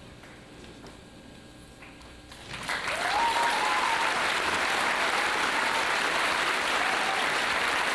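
Audience applause breaking out suddenly a little over two seconds in and carrying on steadily, with a drawn-out whoop rising over it.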